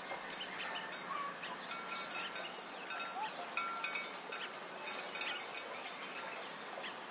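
Many small livestock bells clinking and tinkling irregularly, overlapping, as the animals wearing them move about.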